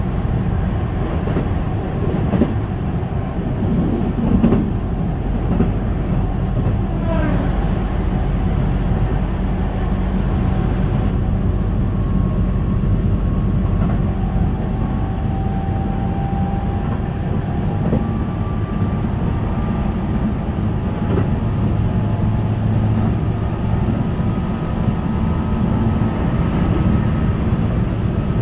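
Keihan 8000 series electric train running at speed, heard from inside a passenger car: a steady rumble of wheels on rail. A brief falling tone comes about seven seconds in, and from about halfway a faint high whine climbs slowly.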